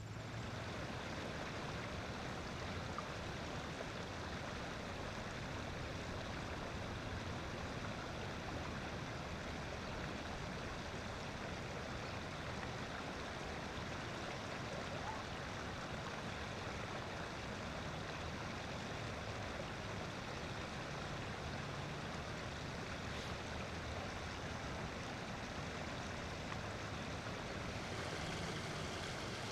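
Steady rushing outdoor background noise, even throughout with no distinct calls or impacts.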